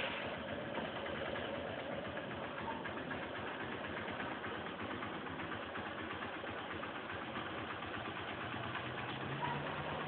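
Hero Honda Hunk's single-cylinder four-stroke engine idling steadily.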